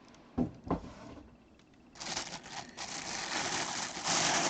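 Two light knocks, then a steady rustle and scrape of cardboard and packaging being handled as a box is opened, growing a little louder near the end.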